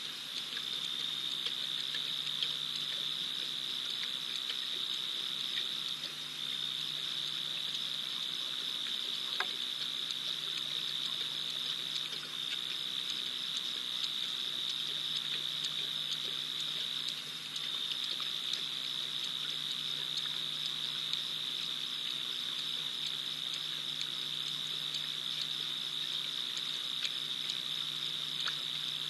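Night insect chorus, crickets or similar, keeping up a steady high-pitched trill, with scattered faint ticks over it.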